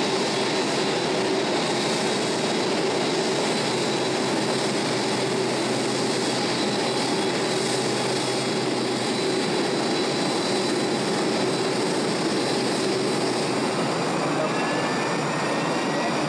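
Airbus A380-800's four jet engines running at taxi power: a steady rushing roar with constant whine tones, and a faint rising whine near the end.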